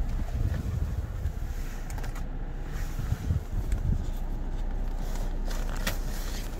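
Rustling and a few sharp clicks as school supplies are handled and pulled out of a new backpack, over a steady low rumble.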